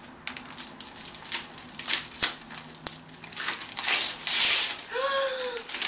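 Paper gift bag and tissue paper rustling and crinkling as hands dig through them, loudest about four seconds in.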